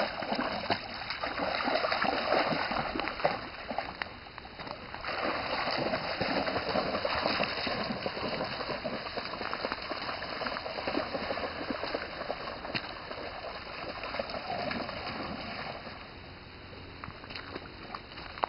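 Dogs splashing as they wade through a shallow stream, over the water's steady trickle, with scattered sharp clicks. The sound gets quieter near the end as the dogs move farther off.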